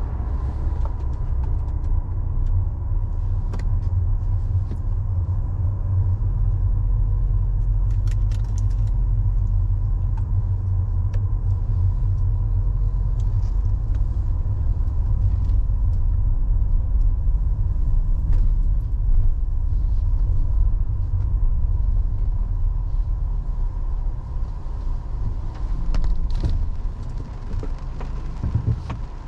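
Low, steady rumble of a car's engine and tyres heard from inside the cabin at slow speed, with a faint steady whine over it and a few scattered light clicks.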